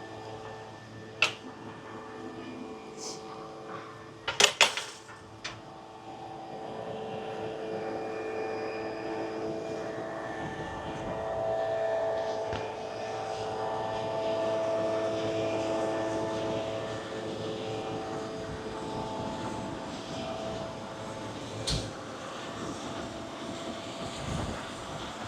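A steady mechanical drone made of several held tones, swelling and fading over some seconds. Sharp clicks or knocks come near the start, the loudest pair about four seconds in.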